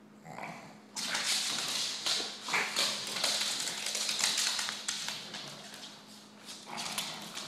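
A pug and an English bulldog puppy scuffling on a hardwood floor, their claws scrabbling and tapping on the wood. A dense burst of scrabbling and ticks starts about a second in and lasts several seconds, with a shorter burst near the end.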